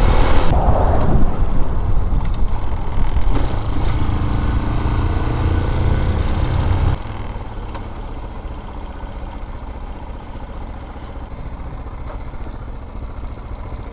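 Vitacci Bashan BSR Raven 250 motorcycle running while ridden, with a loud low rumble on the microphone. About seven seconds in, the sound drops sharply to a quieter, steady engine and road noise.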